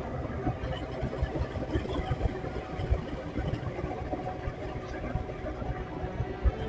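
Motorcycle engine running steadily while riding, with wind buffeting the microphone in gusty low rumbles.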